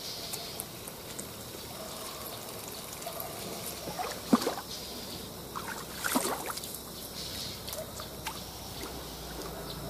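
A hooked fish splashing at the water's surface as it is reeled in to the bank, two splashes about two seconds apart, the first one the louder.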